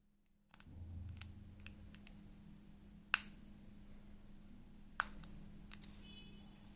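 Small scattered clicks and ticks of a precision screwdriver working the tiny back-cover screws of a smartwatch, with two sharper clicks about three and five seconds in, over a faint steady hum.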